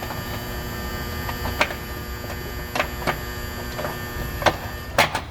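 A steady electrical hum with about six short metallic clicks and taps, the loudest two near the end, as the panic bar exit device's cover and its screws are handled and fitted.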